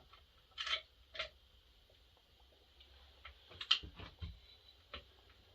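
Scattered light clicks and taps of chainsaw parts being handled and fitted by hand on a McCulloch Super 1010, about half a dozen in all, the loudest a quick cluster a little under four seconds in, over a faint steady hum.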